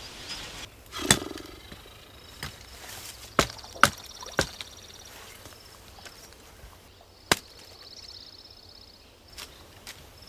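Hatchet chopping into wood on the ground: a string of sharp, single strikes at uneven intervals, the loudest about a second in and a cluster a few seconds later.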